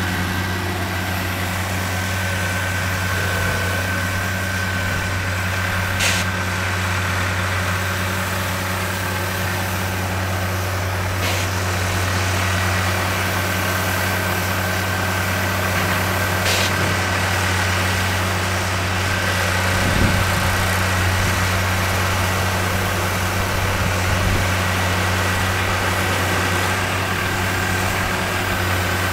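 Diesel engine of heavy construction machinery running steadily with a low, even drone and a thin steady whine above it. A few sharp clicks come through about five seconds apart.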